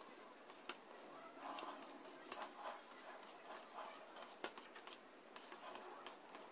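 Faint, scattered clicks and rubbing from a Kodak T210 tripod's center-column crank being turned by hand.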